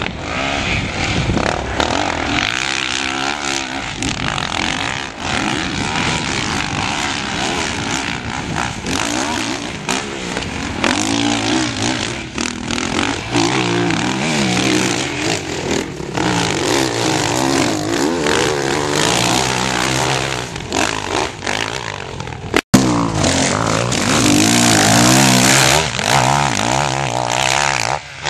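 Motocross motorcycle engines revving up and down over and over as the bikes are ridden round a sand track, the engine pitch repeatedly rising and falling with the throttle. The sound drops out briefly about three-quarters of the way through.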